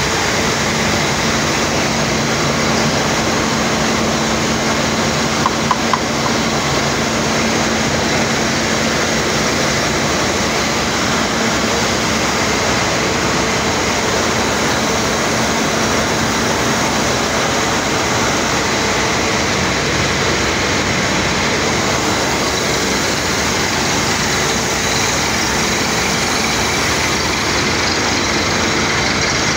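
Compressor-driven borewell drilling rig running at full work: a loud, unchanging drone of engine and rushing air, with three short clicks about six seconds in.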